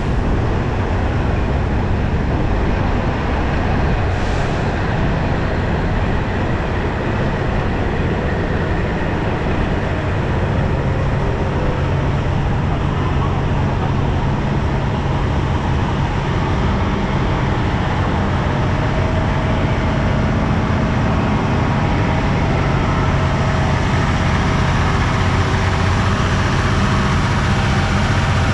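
Diesel train engine running steadily: a constant low hum under a broad rushing noise.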